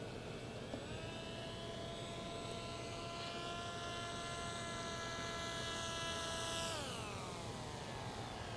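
The electric motor and propeller of a foamboard RC delta plane on a 3S battery, making a steady whine. The pitch rises about a second in, holds steady, then falls away about seven seconds in as the plane passes low.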